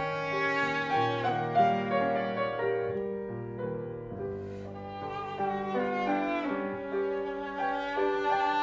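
Classical viola and piano duo: the viola plays held, bowed melodic notes over piano accompaniment. The music grows quieter a few seconds in, then swells again.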